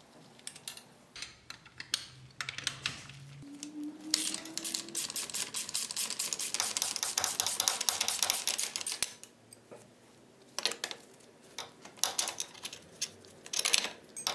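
Rapid, dense clicking of a ratchet wrench backing out the footrest mounting bolts, lasting about five seconds from about four seconds in. Scattered metal clinks of the loose bolts and tools being handled follow.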